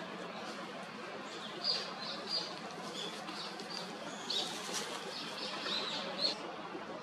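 Small birds chirping: a scattering of short, high calls over a steady background hiss, starting about a second and a half in and thinning out near the end.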